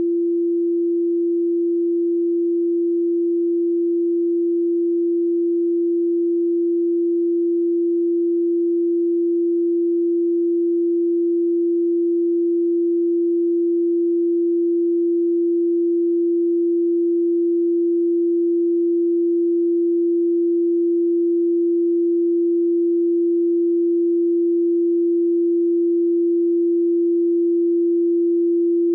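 Electronically generated pure sine tone held steady at 341.3 Hz.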